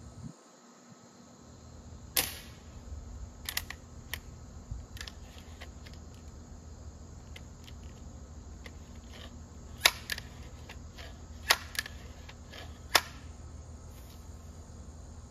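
Legacy 1000 break-barrel air rifle being cocked and reloaded: a scattering of sharp mechanical clicks and snaps. There is a louder click about two seconds in, and three loud snaps in the last few seconds.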